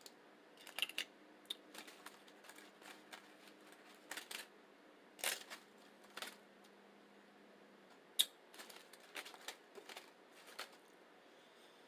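Close-miked chewing of a rice-and-bean burrito: faint, scattered mouth clicks, with a sharper click about eight seconds in.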